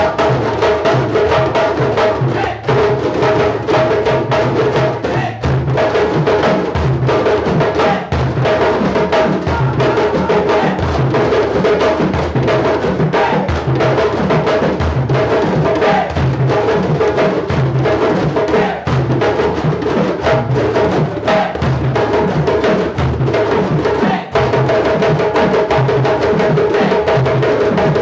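A group of djembes played together by hand, many strokes overlapping in one continuous rhythm.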